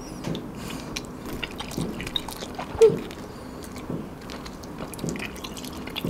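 Close-up mouth sounds of two people eating stretched melted mozzarella cheese: chewing, sucking in the cheese strands, and small wet clicks and smacks. There is one short louder mouth sound near the middle.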